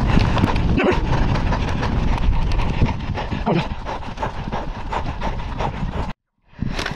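Rapid irregular footfalls and jostling handling noise from a handheld camera carried at a run across a wet field, with wind buffeting the microphone. The sound cuts off abruptly about six seconds in.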